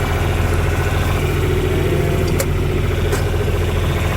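Tractor engine running at a steady speed, a low even drone, with two faint clicks partway through.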